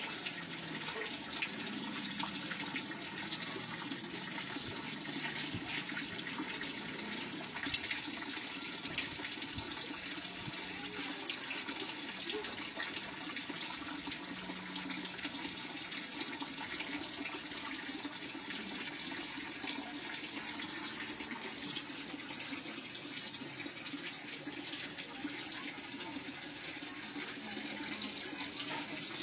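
Water running steadily into a small garden pond, a continuous splashing trickle.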